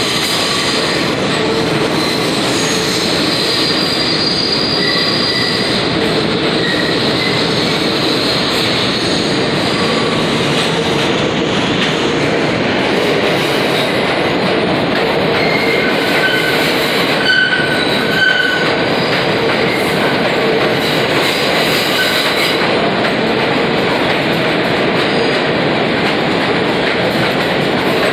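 New York City subway train running past the station platform: a steady rumble and rattle of steel wheels on the rails, with a few short high-pitched wheel squeals a little past the middle.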